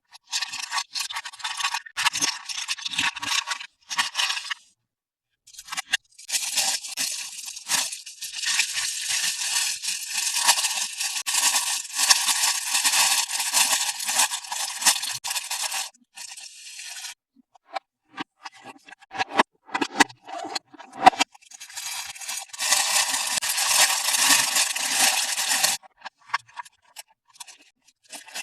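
Toy packaging being handled and opened by hand: two long stretches of dense rustling and scraping, separated by shorter clicks and taps.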